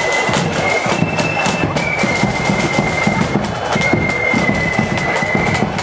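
Loyalist marching flute band playing: flutes carry a high melody in long held notes over the steady, rapid beat of the side drums.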